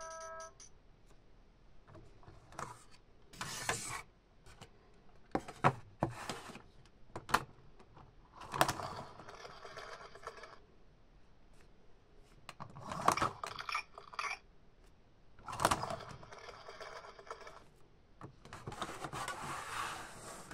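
Hard plastic toy track pieces being handled, knocked and slid on a table: a string of separate clacks and scrapes several seconds apart. A toy's electronic melody is just ending in the first half second.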